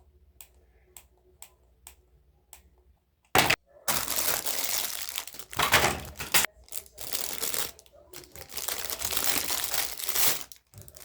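Packaging being handled and opened: a few light clicks, then loud crinkling and rustling in several long stretches from about a third of the way in.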